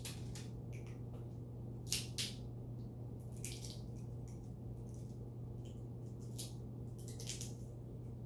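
Steady low electrical-sounding hum with scattered short, sharp clicks and crackles, a pair of them about two seconds in.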